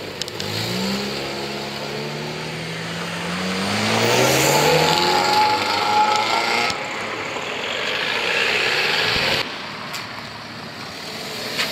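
Modified car accelerating away, its engine note climbing several times in a row as it pulls through the gears, loudest about halfway through. The sound drops off suddenly about three-quarters of the way in.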